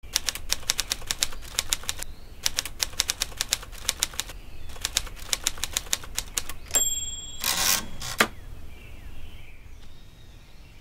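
Typewriter sound effect: keys clacking rapidly in three quick runs, then the carriage-return bell dings once, followed by the sliding rush of the carriage being returned and a final clack.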